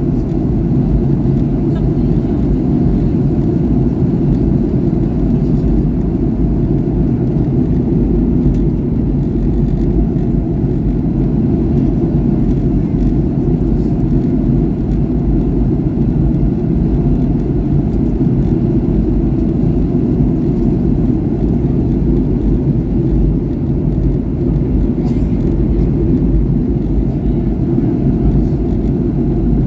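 Steady cabin noise inside a Boeing 737-800 in flight: its CFM56-7B turbofan engines and the airflow make a dense, low rumble that holds level without change.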